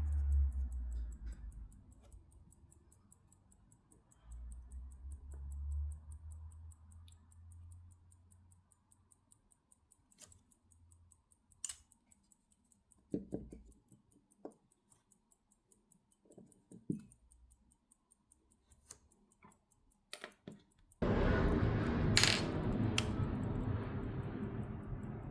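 Scattered faint clicks and taps of small tools and metal strap parts being handled while a watch strap is fitted to its case. About four seconds before the end a steady noise starts suddenly, with two sharp clicks in it.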